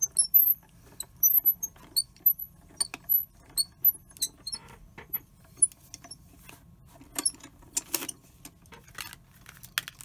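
Manual die-cutting machine rolling a die and cardstock between cutting plates through its rollers: a run of irregular clicks and creaks with short high squeaks as the plates are pressed through.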